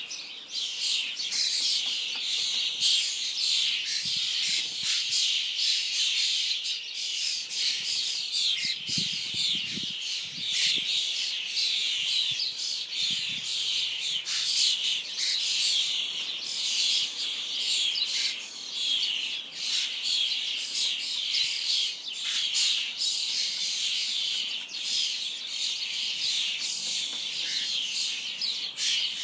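Flock of common starlings, many of them newly fledged young, calling all at once in a dense, unbroken chorus of harsh chattering and squawks.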